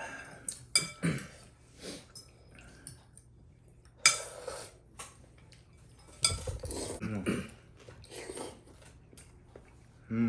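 Spoons and chopsticks clinking against bowls, with eating noises from a bowl of noodle soup: repeated short clicks, plus longer bursts about four seconds in and again around six to nine seconds.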